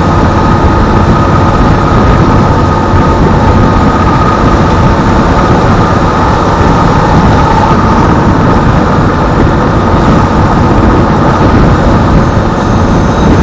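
Narrow-gauge diesel railcar running uphill on the line: a loud, steady drone of engine and wheels on the rails, with a faint high whine in the first half.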